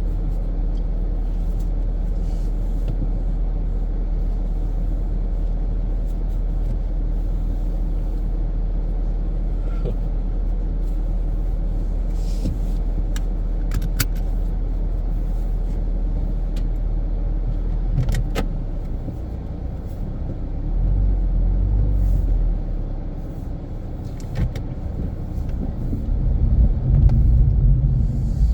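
Infiniti Q50 Red Sport 400 with its 3.0-litre twin-turbo V6 driving, giving a steady low rumble of engine and road. About two-thirds of the way through it drops and rises again a couple of times, and it is loudest near the end.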